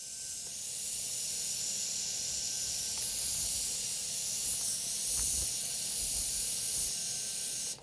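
Hand-held hair dryer blowing steadily, a loud airy hiss with a faint whine, warming the vinyl seat cover to keep it soft and pliable; it cuts off suddenly near the end.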